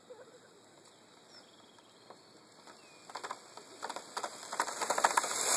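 RC drift car running across asphalt toward the camera, its tyres crackling and hissing over the grit, growing steadily louder from about three seconds in.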